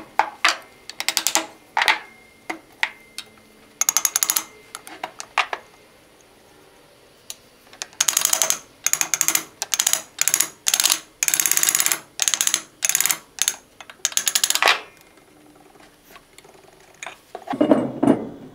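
Dead blow hammer tapping the end cap of a small electric motor to work it loose: a few scattered knocks, then a steady run of even taps about two a second. Near the end a louder, lower sound comes as the cap comes free.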